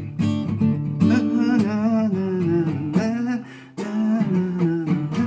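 Worship-song music: an acoustic guitar strumming chords, with a wordless vocal line wavering over it. The music dips briefly about three and a half seconds in.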